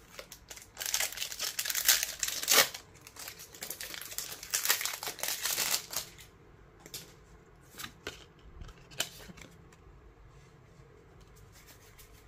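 Foil wrapper of a Pokémon card booster pack crinkling and tearing open, in two stretches over the first six seconds. After that come a few soft clicks and slides of cards being handled.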